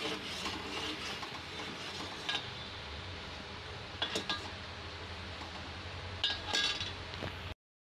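Sugar syrup boiling in a metal pot with a steady bubbling hiss, while a metal ladle stirs it and clinks against the pot a few times. The syrup is at its finished, ready stage. The sound cuts off suddenly near the end.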